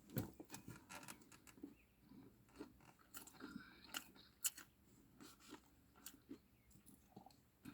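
Faint close-up mouth sounds of someone chewing food: soft crunches and small wet clicks scattered irregularly, with the loudest at the start and about four and a half seconds in.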